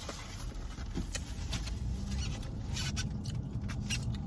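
Light rustling and scattered clicks of the food and drinks being handled inside a car cabin, over a faint steady low hum that starts about two seconds in.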